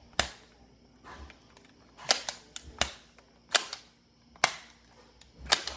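Sharp hard-plastic clicks and snaps, about one a second, from a Nerf Modulus blaster stock being handled and worked.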